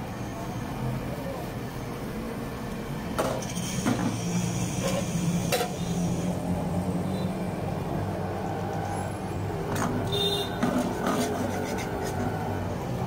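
Metal cookware clinking and scraping: a batter ladle, a pan lid and a flat spatula working a small appam pan, with sharp clinks about three to four seconds in, near the middle and again near the end. Under it runs a steady low hum of street background noise.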